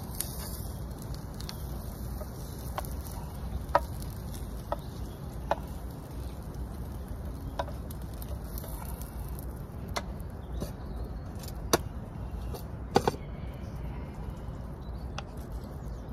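Small wood fire crackling in a Bushbox XL twig stove: irregular sharp pops over a low steady rush.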